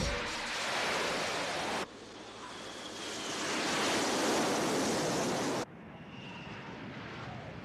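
Cartoon sound effect of fighter-jet engines in flight: a steady rushing noise that swells in the middle and changes level abruptly twice, quieter near the end.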